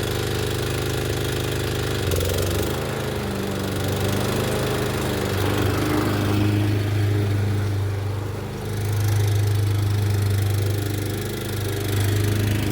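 Etesia Pro 46 rotary mower's petrol engine running, its speed and loudness rising and falling a few times.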